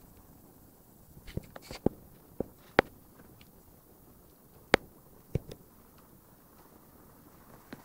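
A handful of sharp, irregular knocks and clicks, about eight in four seconds and then one more near the end, over a low steady background hiss.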